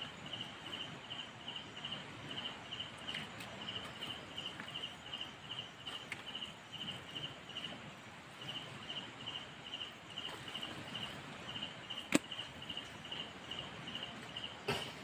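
An insect chirping in even, high pulses, about three a second, with a short pause around eight seconds in, over faint rustling as an arm works into a mud crab's burrow. A single sharp click about twelve seconds in.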